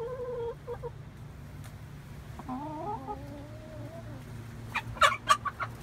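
Domestic hens making soft, low, drawn-out calls, one call wavering in pitch in the middle. Near the end comes a quick cluster of sharp taps.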